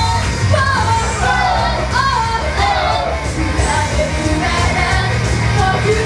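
Live J-pop idol song: two female singers singing a bending melody into microphones over loud backing music with a steady bass beat, played through a club PA.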